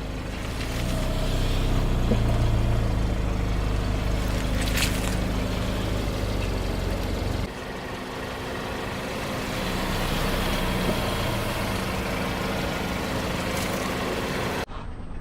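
A car's engine running at low speed, a steady hum, with a short crackle about five seconds in. The sound changes abruptly twice, at about seven and a half seconds and near the end.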